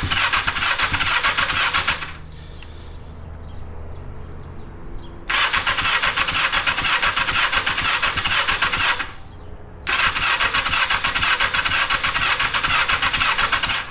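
Electric starter cranking a 1981 Yamaha XJ750's four-cylinder engine in three bursts of about two, three and a half and four seconds, turning it over without catching. It is a spark test: one spark plug is out of its cylinder and grounded against the head.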